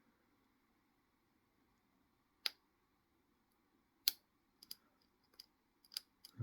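Sparse small metallic clicks of a hook pick working the pin stack of a Commando laminated steel padlock under tension, lifting the springy fifth pin towards its set. About seven scattered clicks, the first about two and a half seconds in and the sharpest about four seconds in.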